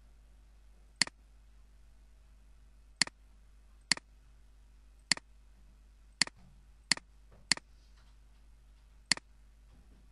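Computer mouse button clicking eight times at uneven intervals, each a short sharp click.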